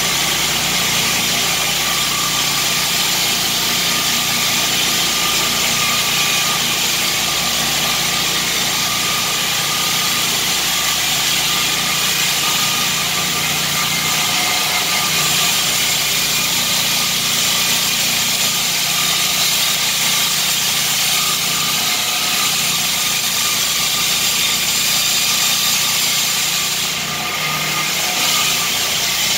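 Core Cut concrete-cutting saw unit running steadily, a loud, even mechanical drone with a hiss over it, cutting through concrete; the level dips briefly near the end.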